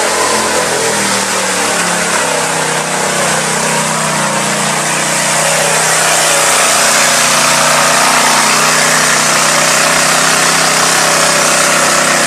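Lifted mud truck's engine running hard at high, fairly steady revs as it churns through a mud pit, over a dense wash of noise from the spinning tires and flung mud. The engine gets a little louder about halfway through.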